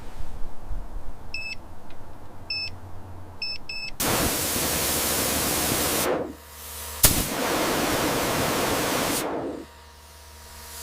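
A few short electronic beeps over a low rumble, then two long bursts of loud hissing, each lasting a couple of seconds, with a sharp click between them.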